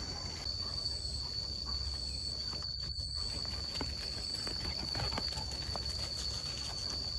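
A steady, high-pitched insect drone, with faint scattered footsteps and small knocks.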